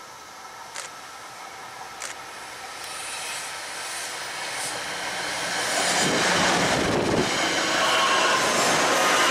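NJ Transit Arrow III electric multiple-unit commuter train approaching and passing close by, growing steadily louder as it nears. From about six seconds in the cars go by, with a dense rush of wheels on the rails.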